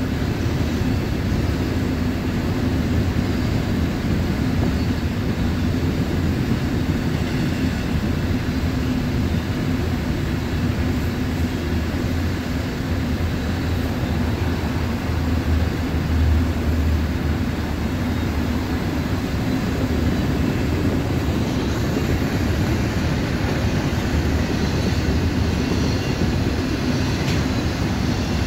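Double-stack intermodal well cars of a long Union Pacific freight train rolling past, a steady loud noise of wheels on rail.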